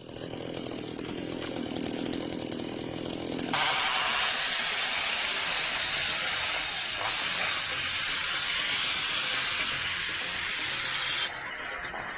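Husqvarna 560 XP two-stroke chainsaw running. About three and a half seconds in it turns louder and hissier, like the saw cutting at full throttle, and holds that way until it drops back near the end.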